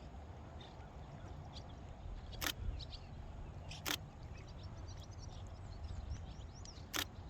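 Nikon D500 DSLR shutter fired as single frames: three sharp clicks, about two and a half seconds in, a second and a half later, and again near the end. Faint bird chirps and a low rumble lie underneath.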